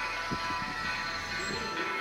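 Music with long held tones and a steady level.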